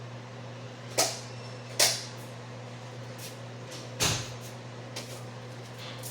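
Kitchen handling clatter: three sharp knocks, about one second in, just under two seconds in and about four seconds in, with a few fainter taps later, over a steady low hum.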